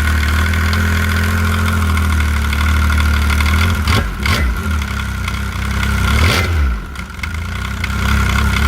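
Snowmobile with a 1049cc Yamaha engine idling steadily, with two short throttle blips about four and six seconds in. The original Arctic Cat primary clutch with worn arms makes the running noisy.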